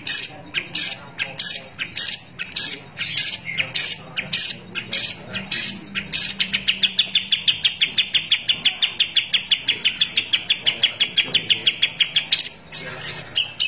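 Long-tailed shrike (cendet) singing: a run of loud repeated notes about two to three a second, then about six seconds in a fast, even chatter of some eight notes a second lasting several seconds, changing to a different trill near the end.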